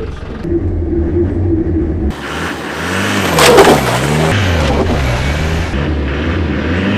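Land Rover Defender 110 engine revving up and down as it spins its tyre on top of an RC car on tarmac. From about two seconds in, a harsh hiss of wheelspin joins the engine, loudest about halfway through.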